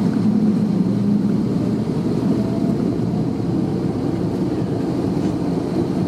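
Airbus A330-200's engines running at low power, a steady low hum heard inside the passenger cabin while the airliner taxis.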